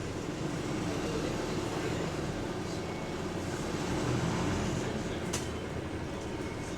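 Bus in motion, heard from inside: a steady rumble of engine and running gear, with a single sharp click about five seconds in.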